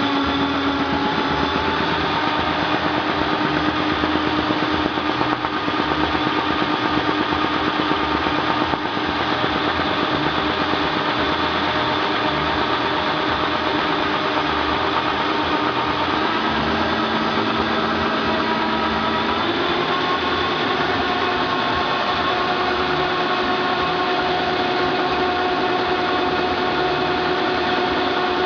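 Halm Super Jet two-colour envelope offset press running at speed, feeding and printing envelopes continuously: a steady, fast mechanical clatter with a constant whine whose pitch shifts slightly about two-thirds of the way in.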